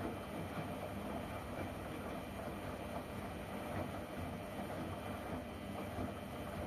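LG washing machine running its wash, a steady mechanical hum and rush with no breaks.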